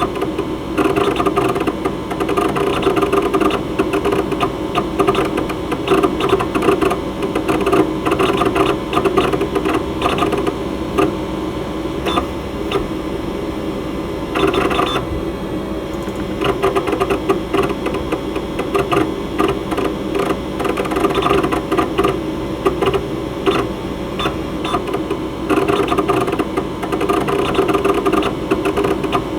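Mechanical hard disk drive running: a steady hum from the spinning platters under rapid, irregular clicking and chattering from the read/write heads seeking, a sign of the drive actively reading and writing. The chatter comes in bursts and eases off for a few seconds now and then.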